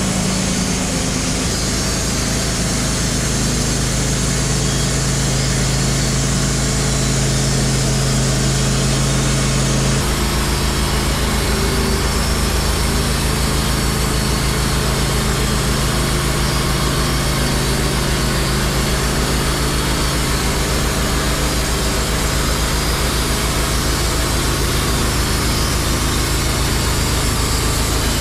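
Wood-Mizer LT15 Wide portable band sawmill running steadily under power as its band blade saws through a hemlock log. The tone changes abruptly about ten seconds in.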